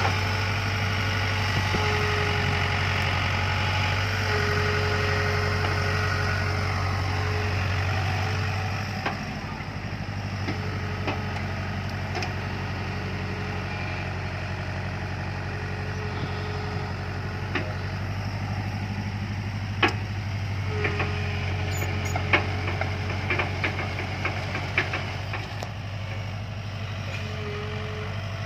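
JCB backhoe loader's diesel engine running steadily. Its level drops about nine seconds in. A scatter of sharp knocks and clanks comes in the second half.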